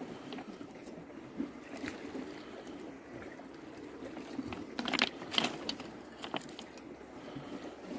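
Steady wash of sea waves on a pebble shore with some wind on the microphone, and a short cluster of sharp crackles about five seconds in.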